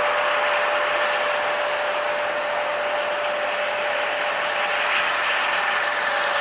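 Jet airliner engines running steadily: a constant loud hiss with a steady whining tone through it.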